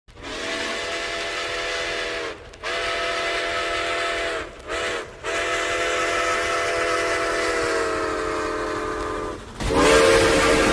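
Six-chime steam locomotive whistle of the Santa Fe (ATSF) type, sounding a chord in blasts: long, long, short, long, the long-long-short-long grade-crossing signal. The pitch sags slightly at the end of the last long blast. A louder, hissier blast begins near the end.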